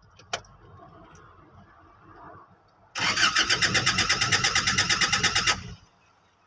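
A single click, then about two seconds later a diesel pickup's starter cranks the engine for about two and a half seconds in rapid even pulses and stops without the engine catching: a crank-but-no-start condition.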